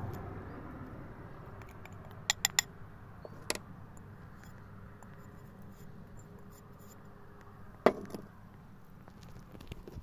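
A wooden spoon clinks sharply against a small black pan three times in quick succession, then once more, while marinade is spooned onto a raw whole chicken. Near the end comes a single louder knock as the pan is set down on the table.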